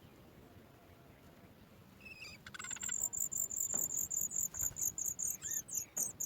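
Sooty chat nestlings begging for food: after a short call and a brief rattle about two seconds in, a rapid, steady run of very high-pitched chirps at about three a second.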